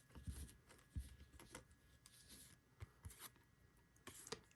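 Faint rustling and light clicks of baseball trading cards being handled and slid against one another, a soft tick every second or so.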